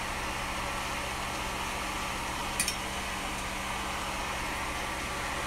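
A steady hum and hiss like a running fan, with two quick metal clicks about two and a half seconds in as a metal spoon spreading sauce taps the flatbread's metal baking tray.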